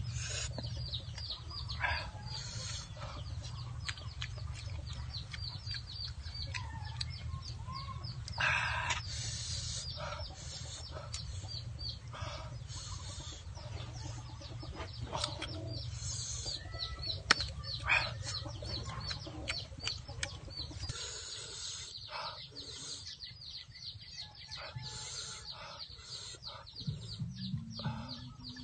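Chickens clucking with small birds chirping rapidly and high-pitched over a steady low rumble, and scattered sharp clicks of snail shells being handled.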